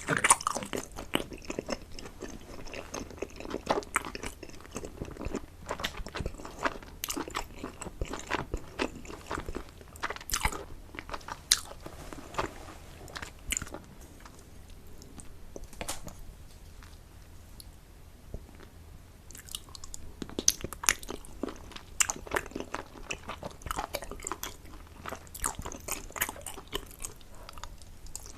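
Close-miked eating: chewing and biting, with many short sharp clicks and smacks, quieter for a few seconds a little past the middle.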